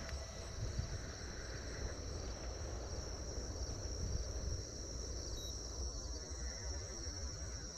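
Crickets chirping in a steady, high-pitched night chorus, over a low rumble.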